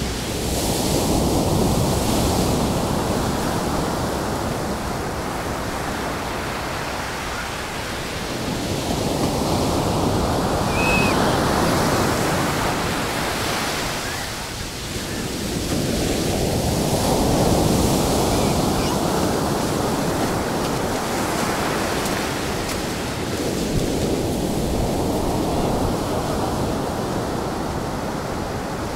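Storm surf on a sandy beach: large waves breaking and rushing up the shore. The roar swells and ebbs with a new wave about every seven to eight seconds.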